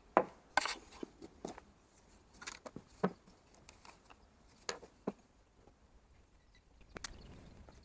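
Handling noise of plastic canisters, a tin measuring cup and a glass jar on a work table while epoxy resin and hardener are measured out: a string of scattered sharp knocks and clunks, with quiet gaps between.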